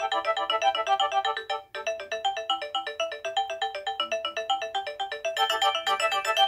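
Nokia 6085 mobile phone playing one of its preloaded ringtones: a fast melody of short, repeated electronic notes. It breaks off briefly about a second and a half in, then starts again.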